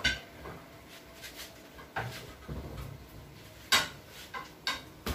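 Tools and a tire being handled at a tire changer: a handful of separate knocks and metallic clanks, the loudest a little under four seconds in.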